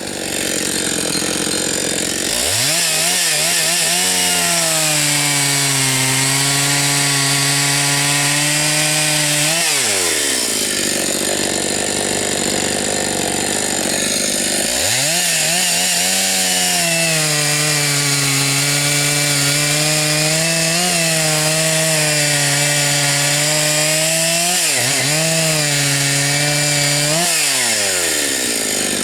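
Husqvarna 272XP two-stroke chainsaw running hard while cutting firewood logs. Its engine note holds steady for several seconds, falls away a little before halfway, then climbs again for a second long stretch near the end.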